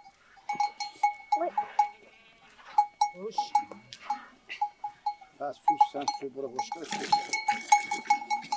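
Goat bells clinking over and over as a herd of goats moves about, with goats and kids bleating among them, the bleating denser and louder in the second half.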